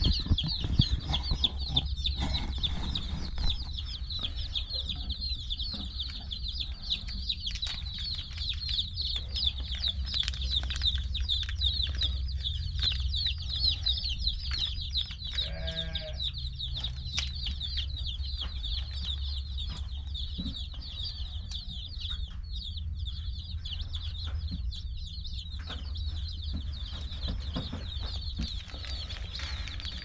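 Many baby meat-bird chicks peeping together without pause, a dense chorus of short, high cheeps, over a low steady rumble.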